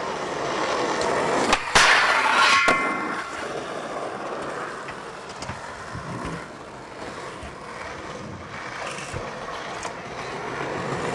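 Skateboard wheels rolling on asphalt, then a clack about two seconds in as the trucks lock onto a metal flat bar for a backside feeble grind: a short, ringing metal scrape ending in a second clack as the board lands. After that, wheels roll steadily on the rough asphalt.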